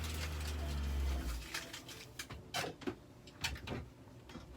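A low steady hum that stops about a second and a half in, followed by a handful of light clicks and knocks, like things being handled during food preparation.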